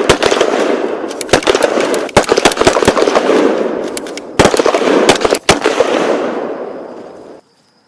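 Rapid automatic gunfire, shot after shot over a dense crackling echo, dubbed over the Nerf play as a sound effect. A fresh burst comes about four and a half seconds in; it then dies away and cuts off abruptly near the end.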